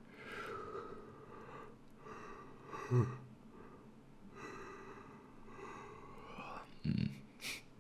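A man yawning close to the microphone, a long drawn-out yawn with his voice sliding in pitch, followed by a short breath and mouth sound near the end.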